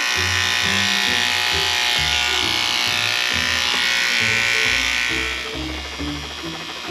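Electric dog-grooming clippers buzzing steadily as they trim the hair from between a dog's paw pads, dropping away about five seconds in. Background music with a low bass line plays underneath.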